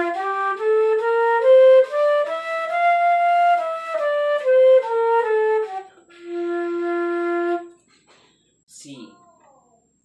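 Concert flute playing a one-octave scale, each note tongued separately, stepping up to the top note and back down, then holding the bottom note for about a second and a half before stopping.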